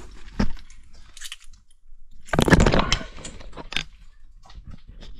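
Irregular crunching and scuffing of feet shifting on a gritty, debris-strewn stone floor, with a louder scrape about halfway through.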